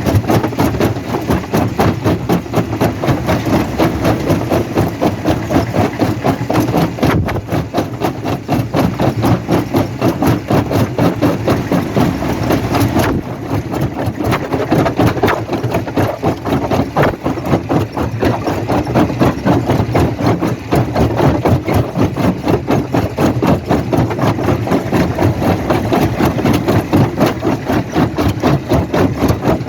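Stone crushing machinery running steadily, with a rapid, even knocking rhythm of about four to five beats a second over a heavy engine drone. The rhythm dips briefly about thirteen seconds in.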